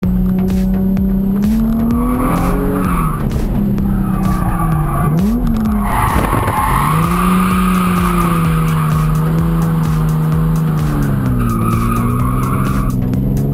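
Nissan 350Z's V6 engine heard from inside the cabin, its pitch rising and falling as the throttle is worked through drifts. The tires squeal in three long stretches, the middle one the loudest.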